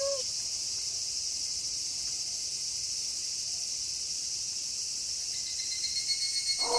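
Steady, high chorus of night insects chirping, typical of crickets. A wolf's howl dies away in a falling tail right at the start, and a new long howl begins just before the end.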